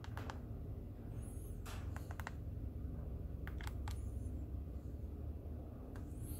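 Keys being pressed on a TI-Nspire CX CAS graphing calculator: a few short, soft clicks in small clusters, about two seconds apart, over a steady low hum.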